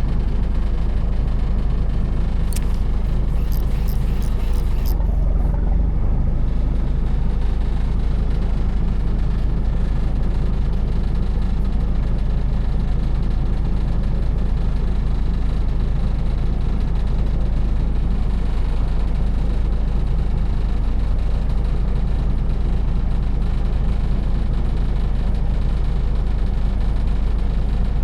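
Boat engine running steadily with a deep, even rumble. A short run of faint, sharp clicks comes about three seconds in.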